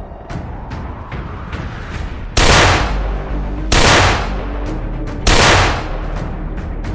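Three loud, sharp gunshot-like bangs, about a second and a half apart, each cut off after about half a second, over background music.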